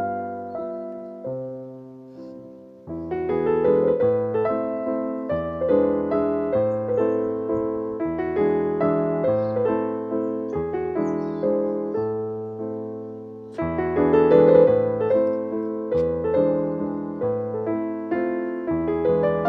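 Background piano music: a calm melody of struck notes with sustained chords, swelling louder about three seconds in and again past the middle.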